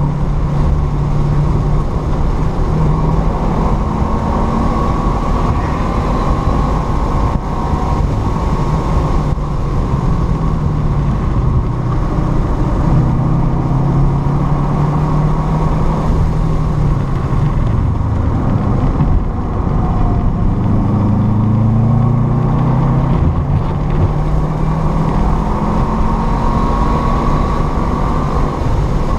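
Car engine heard from inside the cabin, working hard under throttle at high revs. Its note falls and rises as the car slows for corners and accelerates, and it climbs steadily near the end as the engine pulls toward 6,000 rpm. Road and wind noise run underneath.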